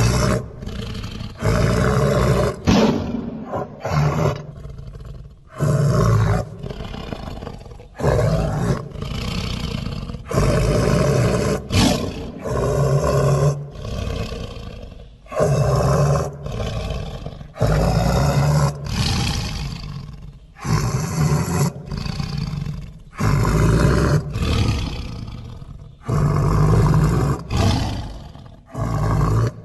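Smilodon (sabre-toothed cat) creature sound effects: a run of separate roars and snarls, each a second or two long, starting suddenly and cutting off abruptly one after another.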